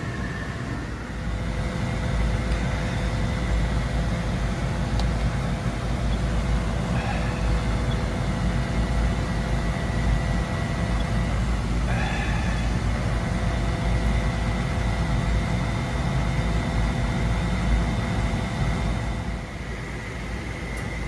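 Gas furnace firing for a combustion and CO check: a steady low rumble with a faint steady whine above it. It gets louder about two seconds in and eases off near the end.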